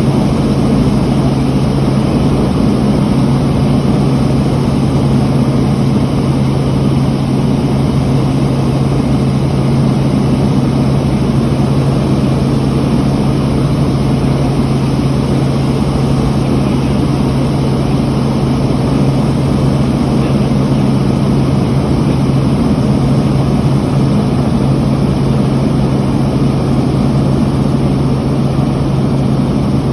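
Helicopter engine and rotor noise heard from inside the cabin, running steadily with a strong low hum.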